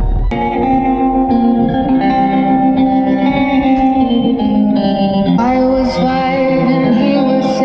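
Music with plucked guitar notes and a melody line. The deep bass that fills the start cuts off about a quarter second in, and clear sustained notes follow.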